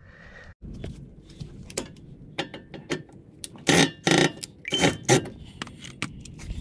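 Makita cordless drill backing screws out of the underside of a car's rear bumper, run in two short bursts about four and five seconds in, with clicks and light metallic rattles of screws and handling in between.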